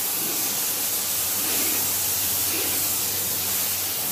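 Pressure washer jet hissing steadily as it sprays a mountain bike's wheel, tyre and disc-brake hub.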